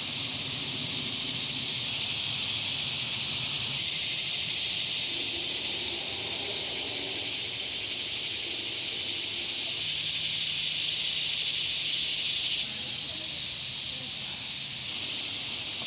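Cicadas in a dense summer chorus: a steady, high buzz that grows louder about two seconds in, falls back a few seconds before the end and swells again near the end.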